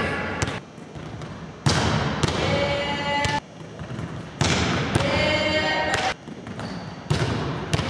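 Volleyball being hit and bouncing on a hardwood gym floor, sharp smacks that ring out in the large hall, heard in three stretches of about a second and a half that start and stop suddenly.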